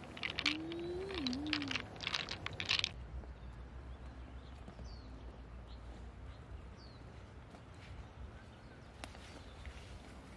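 Pearls clicking against each other and the shell as fingers pick through them in an opened pearl mussel, a quick run of clicks that stops about three seconds in. After that, faint outdoor background with two short bird chirps.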